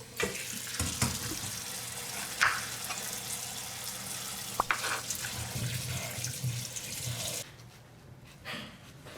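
Tap running into a sink, a steady splashing hiss with a few light knocks, shut off abruptly about seven seconds in.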